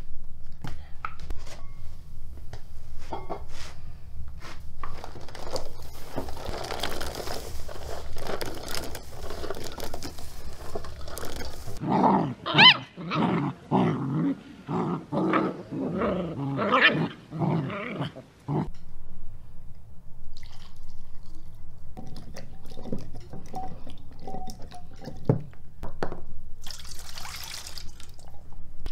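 Puppies yelping as they play, a quick run of short high calls lasting about six seconds in the middle. Before it, small clicks of food being handled in a metal bowl; near the end, water splashing as produce is rinsed by hand.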